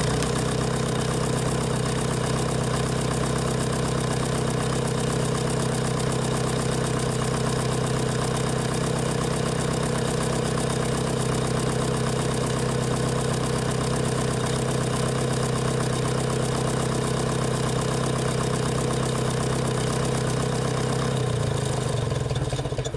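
Nuffield tractor engine idling steadily while the tractor stands still.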